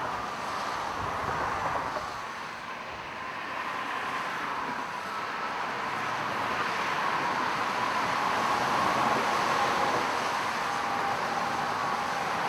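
Road traffic noise: a steady rush of passing vehicles that dips for a moment and then swells, with a faint engine hum holding one note.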